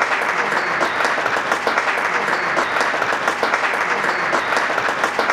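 Spectators in a sports hall applauding, a dense, steady patter of many hands clapping.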